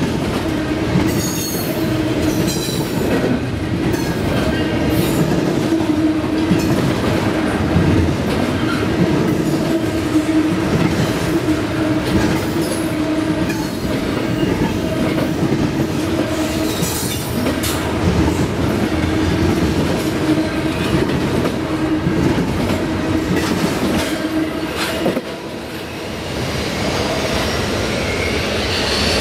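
Double-stack intermodal freight train's well cars rolling past close by: a dense rumble of wheels on rail with scattered clicks and a steady tone held under it. Near the end the last car passes, and the sound drops to a quieter, receding rumble.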